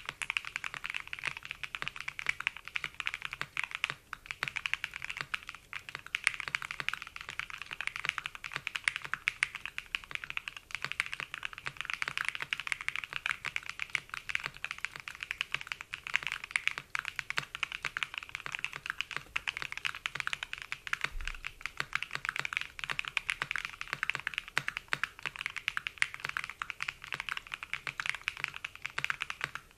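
Continuous touch-typing on a custom Matrix 6XV 3.0 Corsa mechanical keyboard with an aluminium plate, Nerrysicles franken switches (Cherry top housing, Tangerine bottom housing, Nebula stem), Cherry stabilisers and CRP keycaps. The keystrokes come in a dense, unbroken run without pauses.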